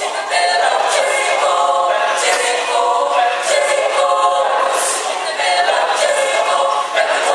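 Mixed choir of women's and men's voices singing together; the singing comes in loudly right at the start.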